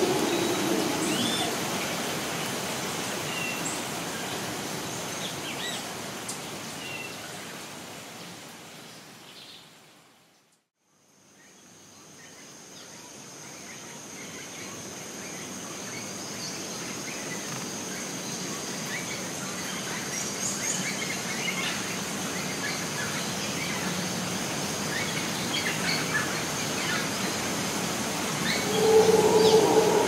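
Rainforest ambience: a steady hiss of background noise with scattered bird chirps. It fades out to silence about ten seconds in and fades back in, with a steady high insect buzz from then on. A loud low drone sets in near the end and is the loudest sound.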